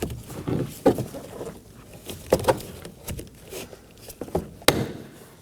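Plastic window-switch trim panel being pulled up out of a car's rear door panel by hand: a series of sharp plastic clicks and knocks as its clips let go and the piece is handled, the loudest near the end.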